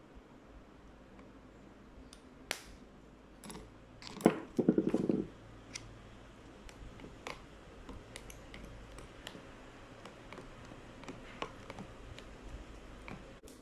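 Close-up eating sounds: a loud slurp of instant noodle soup about four seconds in, then scattered light clicks of the spoon and chopsticks against the noodle cup.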